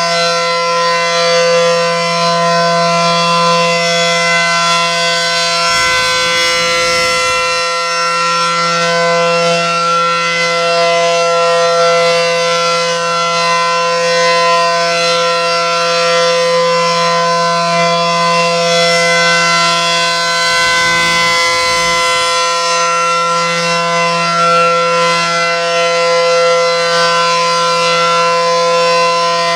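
ACA Allertor 125 outdoor warning siren sounding a steady tone whose pitch holds level throughout, as in a tornado siren test.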